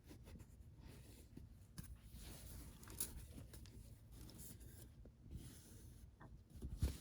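Faint rustling and rubbing of a fabric altar cloth being handled and turned over, with a small click about three seconds in and a soft knock near the end.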